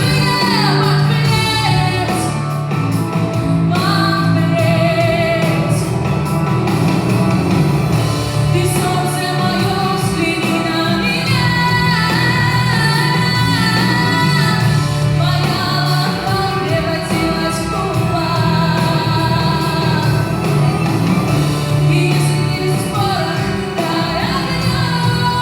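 A woman singing a song with vibrato on held notes over a steady instrumental accompaniment.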